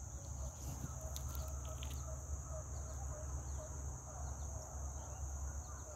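Outdoor background: a steady high insect drone over a low rumble, with faint short animal calls repeating all through.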